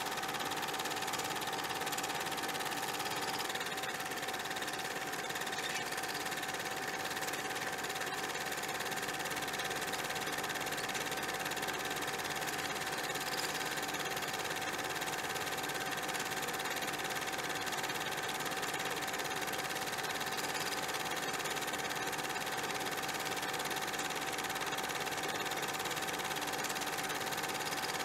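A small motor or mechanism running steadily, an even mechanical whir with a constant hum tone that does not change.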